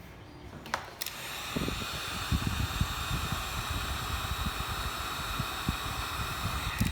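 Heat gun switched on with a click about a second in, then blowing steadily to shrink heat-shrink tubing over a soldered wire joint, stopping right at the end.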